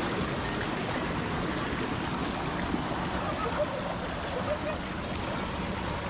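Water rushing steadily over and between granite boulders in a shallow rocky stream.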